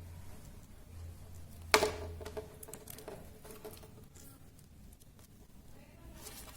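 Quiet handling noises from paper craft work, as paper pieces are glued and pressed in place, with one sharp click or tap a little under two seconds in.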